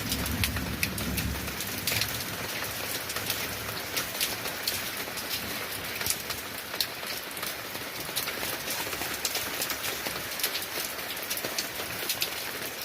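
Steady rain falling, with many individual drops striking close by in sharp pattering ticks. A low rumble sits under the rain for the first second and a half, then fades.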